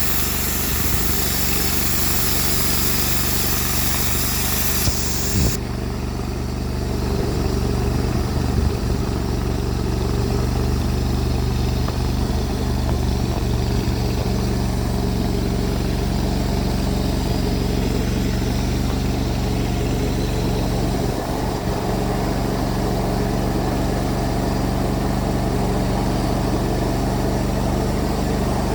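Cook's MP32 bandsaw mill's gas engine running steadily while sawing a log, with a high hiss that drops off abruptly about five seconds in.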